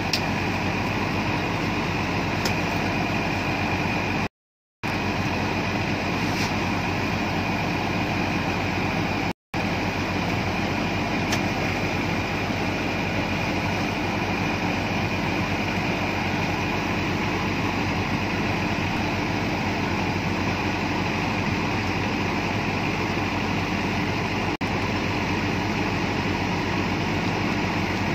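Iseki HC80P rice combine harvester running steadily while grain is unloaded into sacks: a constant engine and machinery drone with a high whine over it. The sound cuts out briefly twice in the first ten seconds.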